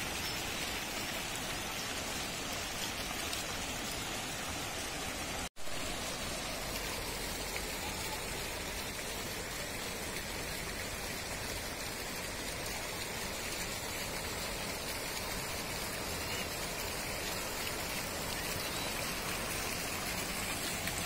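Garden fountain jets splashing into a shallow pool, a steady spattering hiss of falling water. It cuts out for an instant about five and a half seconds in.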